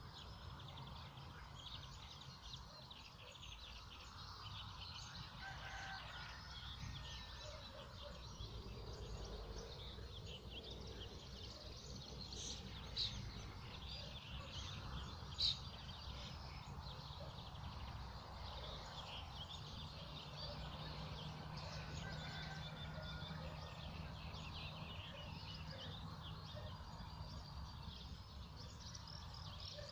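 Several birds singing and chirping continuously over a steady low background noise, with two brief, louder sharp calls about halfway through.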